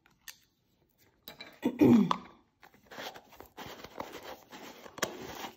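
Jar of gritty glitter effect paste being scraped and its lid screwed shut, a scratchy grinding with small clicks through the second half. About two seconds in, a short loud sound that falls in pitch.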